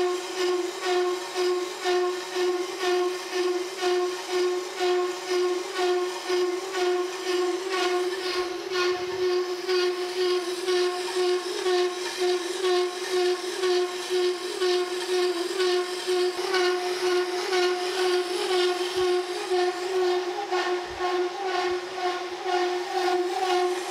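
Six-inch straight-tooth slitting saw on a Kearney & Trecker No. 3H horizontal mill cutting through a cast iron bar, making a steady whistling tone that pulses in a regular rhythm. The noise is vibration, a harmonic set up by the full-width straight-tooth cutter rubbing its sides in the deep cut.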